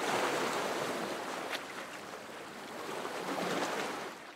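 Steady rush of sea water and wind noise that swells and eases, fading out near the end.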